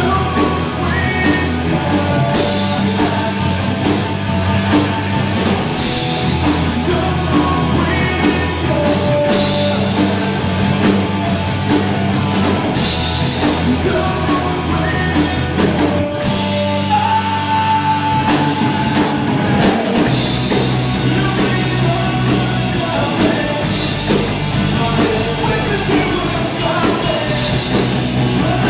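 Live rock band playing electric bass, electric guitar and drum kit, loud and full. About sixteen seconds in, the bottom end drops away for a few seconds under one long held note, then the bass comes back in.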